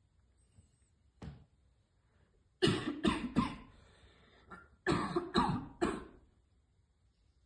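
A young woman coughing hard in two fits of three harsh coughs each, the second fit a couple of seconds after the first, from choking on a hit of vape vapour.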